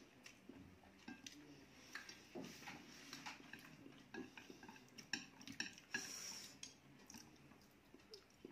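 Faint eating sounds: chopsticks clicking and scraping against plates as noodles are picked up and eaten, with occasional slurping.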